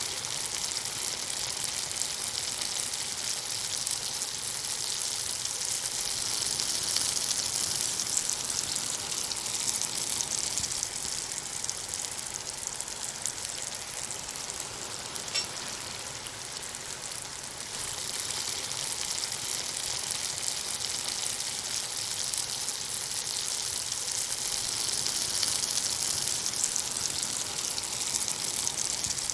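Hot oil and grease sizzling in a frying pan, a dense hiss of small crackling pops. It swells louder twice, once well into the clip and again near the end, and eases off in between.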